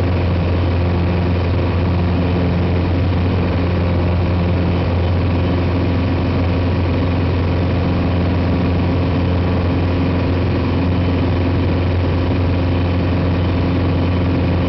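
Piper PA-28 Cherokee's piston engine and propeller running at a steady, unchanging drone in flight, heard from inside the cockpit.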